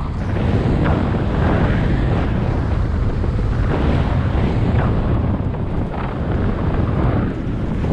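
Wind rushing over a head-mounted action camera's microphone as a downhill mountain bike rides fast down a dirt forest trail, with tyre noise on the dirt and a few brief rattles from the bike.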